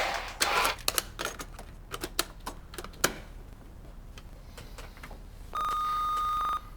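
A run of scattered sharp clicks and taps for about three seconds, then a steady electronic beep about a second long near the end that cuts off abruptly.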